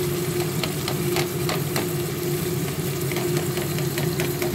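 Chicken and potato curry sizzling in a pot on the stove, with scattered crackling pops, as Thai green curry sauce goes in. A steady low hum runs underneath.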